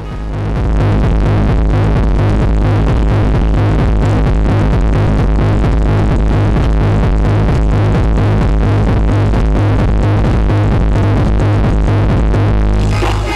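Loud techno music with heavy bass and a steady, even beat, played over a parade truck's sound system. It swells up over about the first second.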